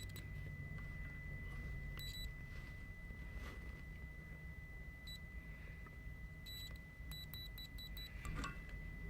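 Faint steady high-pitched electronic tone with a few light clicks, several coming quickly near the end. The meter test of the seat belt buckle switch gives no continuity beep, because the switch is open-circuit.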